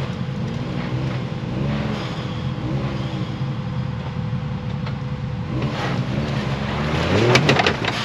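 Can-Am Maverick X3's turbocharged three-cylinder engine running steadily, then revving up about six seconds in as the stuck machine tries to climb, with a few sharp clicks near the end. Its Smart-Lock front differential is not locking and a front tire is not pulling, which the driver takes for a broken differential.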